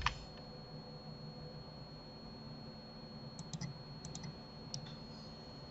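A few quiet clicks of a computer keyboard and mouse: a couple right at the start, then a quick cluster of small clicks about three and a half to four and a half seconds in and a single one near the end. Under them sits a faint steady hum with a thin high whine.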